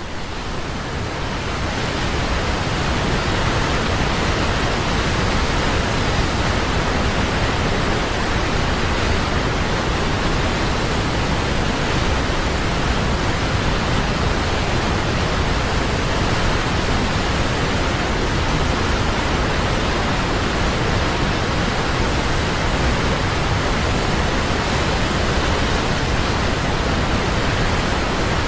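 Waterfall: a steady, unbroken rush of falling water that fades in over the first couple of seconds and then holds level.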